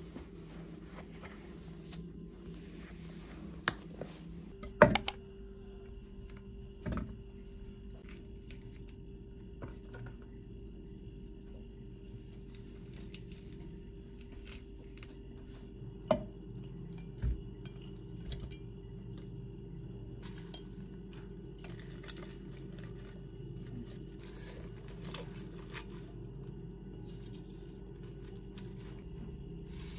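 A few short knocks and clinks of objects being handled, loudest about five seconds in, over a steady low hum.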